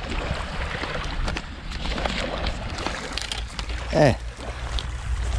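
Steady wind rumble on the microphone over small waves washing on a pebble shore, with light clicks as a telescopic surf rod is handled. A short falling vocal sound about four seconds in.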